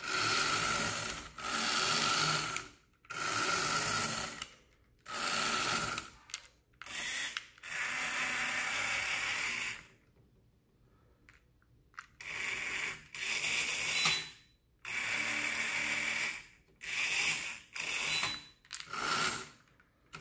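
The small battery-powered electric motors and gearing of a GMP electric ladder fire truck toy, whirring in about a dozen short start-stop bursts as the remote's buttons drive the aerial ladder up and down. The longest run is around the middle, followed by a brief pause before the bursts start again.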